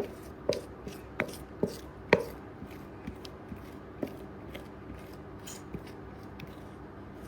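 A kitchen utensil tapping and scraping against a mixing bowl as banana bread batter is scraped out into a loaf tin: a quick run of sharp taps in the first two seconds, then a few fainter ones spaced further apart.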